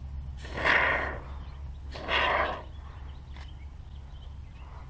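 A DAP pest-blocking expanding-foam spray can hissing in two short spurts as foam is pushed through its straw nozzle, about a second in and again about two seconds in, over a steady low hum.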